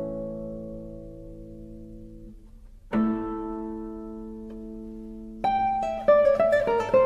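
Acoustic guitar music. A chord rings and fades away, a new chord sounds about three seconds in and rings on, and another comes about five and a half seconds in. A quick run of plucked notes follows near the end.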